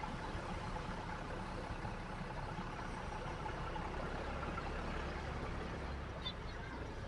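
A vehicle engine running steadily under an even rush of road and wind noise, with no horn sounding.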